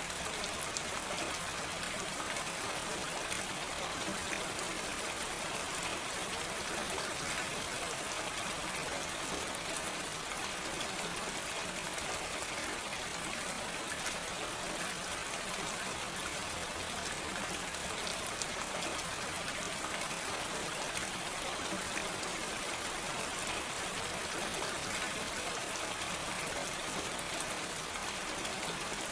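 Steady gentle rain with no thunder, an even hiss of falling rain with fine scattered drop ticks.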